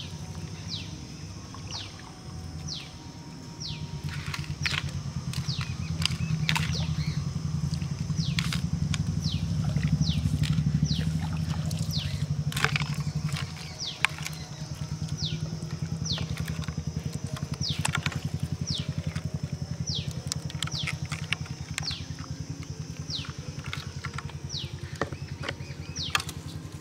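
A small engine running steadily with a low chug, growing louder over the first ten seconds or so and easing off about thirteen seconds in. Many short, quick downward-whistling bird calls sound over it, along with a steady high buzz.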